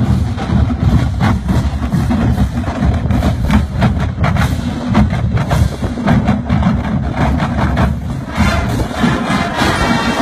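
Marching band playing, with drums and percussion hits to the fore through most of it and the wind section swelling back in with sustained chords about eight seconds in.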